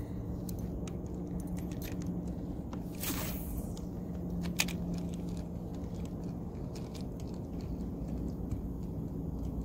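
Spinning fishing reel being cranked to retrieve a Rooster Tail spinner: a steady low whir with scattered small clicks and taps of rod and reel handling, and a brief hiss about three seconds in.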